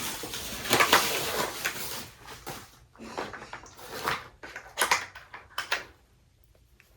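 Rummaging through tools and small objects on a workbench or in a drawer: a dense stretch of rustling and clatter for the first couple of seconds, then separate scrapes and knocks, ending about six seconds in.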